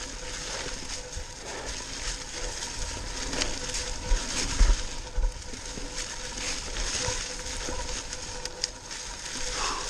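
Mountain bike tyres rolling over dry fallen leaves on a dirt trail: a continuous crunching rustle, with a few knocks from bumps about four to five seconds in.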